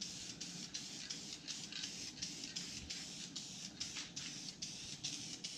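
Aerosol can of Metalcast spray paint hissing in short, quick bursts, a few a second, as the nozzle is pressed repeatedly to coat metal cut-outs.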